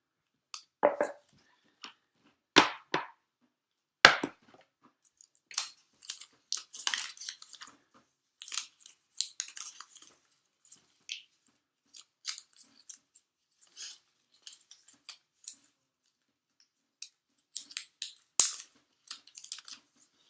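Apple Watch and its packaging being handled: scattered rustling, crinkling and small clicks, with a few sharp knocks about two and a half seconds in, about four seconds in and near the end.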